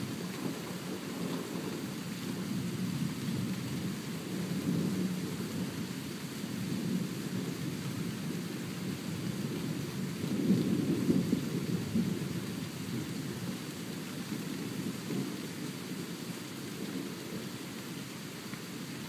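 Thunder rumbling continuously during a thunderstorm, swelling louder about ten seconds in and then slowly fading, over the steady hiss of rain.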